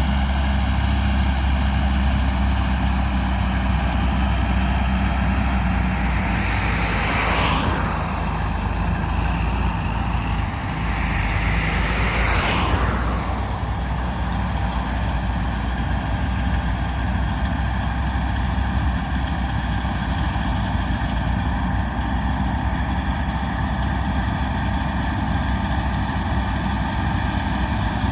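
Diesel engine of John Deere harvest machinery running steadily under load. Two swelling rushes of noise rise and fade, about seven and twelve seconds in.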